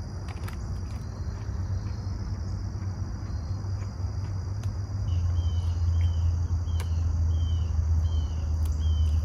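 Insects trilling steadily over a low, steady rumble. From about five seconds in, a short falling chirp repeats about twice a second and the rumble grows heavier.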